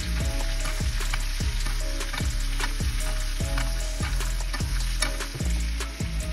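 Butter sizzling and spattering in a cast iron pan while a spoon scoops it over a steak, the metal spoon scraping the pan.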